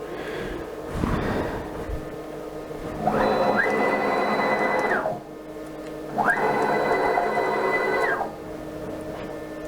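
Stepper motors of a 6040 CNC router jogging the gantry, two moves: each a whine that rises in pitch as the motors speed up, holds steady for about a second and a half, then falls as they slow to a stop.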